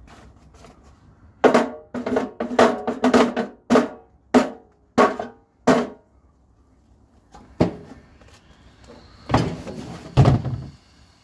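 A series of heavy blows on a battered microwave oven's metal casing: about ten quick strikes, a pause, then a few louder crashes near the end followed by a high ringing tone.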